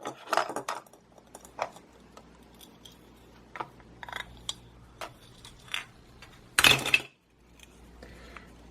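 Plastic toy knife and toy food pieces clicking and knocking against a plastic cutting board, with one louder short rasp near the end as the Velcro-joined halves of a toy onion are pulled apart.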